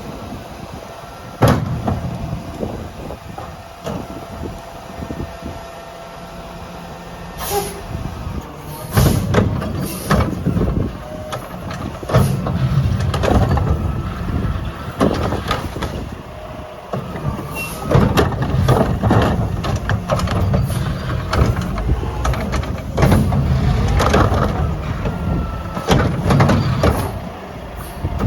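Mack LR garbage truck with a McNeilus Meridian body and Curotto Can working: the diesel engine runs, with sharp knocks and clatter. About nine seconds in the engine grows louder with a heavy low rumble, and the clatter comes thicker.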